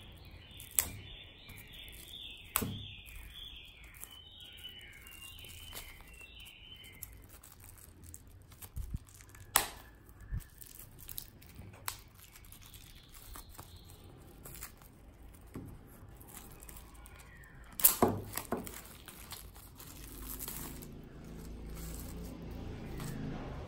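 Clear plastic shrink-wrap being torn and peeled off a pack of paper booklets: irregular crinkles and sharp snaps, the loudest cluster about eighteen seconds in.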